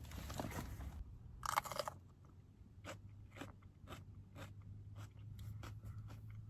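A person chewing a crunchy snack close to the microphone: a louder bite-crunch about one and a half seconds in, then faint, regular chewing clicks.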